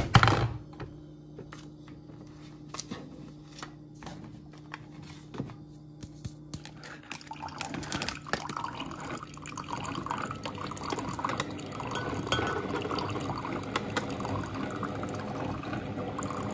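A glass mug knocks down onto a single-serve coffee maker's drip tray, then the brewer hums steadily. About seven seconds in, coffee starts streaming and splashing into the mug, growing louder as it fills.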